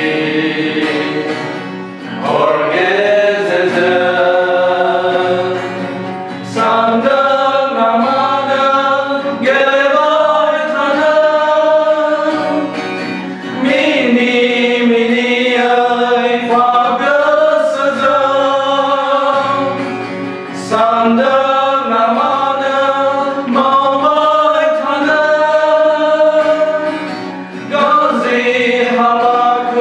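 Three men singing a hymn together in harmony, accompanied by an acoustic guitar, in sung phrases of a few seconds each with short breaks between them.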